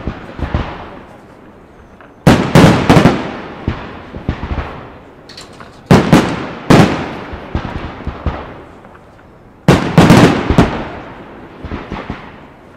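Aerial firework shells bursting in three volleys of several sharp bangs, about 2, 6 and 10 seconds in. Each volley's reports echo and die away before the next.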